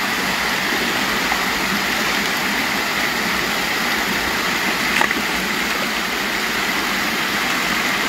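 Steady rush of a shallow stream pouring over a low concrete weir and running over rocks, with water splashing around a wader's legs. A single short knock about five seconds in.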